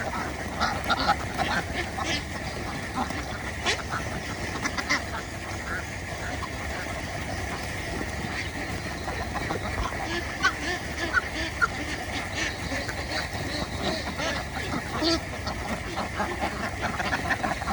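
A flock of domestic ducks quacking, with many short calls overlapping throughout.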